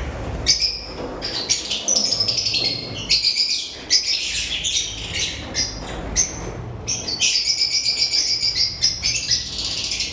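Lovebirds chattering in rapid, high-pitched chirps and squeaks, with brief lulls about three and a half and seven seconds in.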